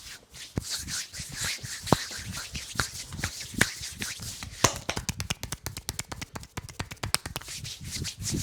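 Sharp percussive taps and clicks of a head massage, scattered at first, then a fast run of many taps a second about midway through.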